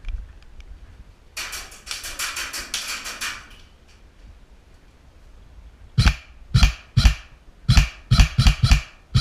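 Airsoft gunfire: a rapid two-second burst of full-auto shots, then about eight single shots at irregular half-second spacing.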